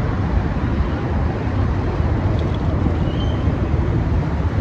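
Steady low rumble with wind buffeting the microphone, like a moving vehicle.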